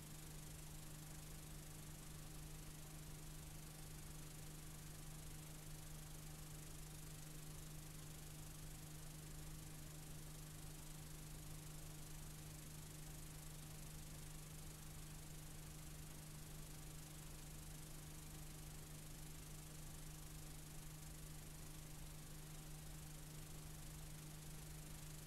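Faint, steady hiss and a constant low hum from an analog videotape playing a blank stretch, the noise of an unrecorded or erased section of tape.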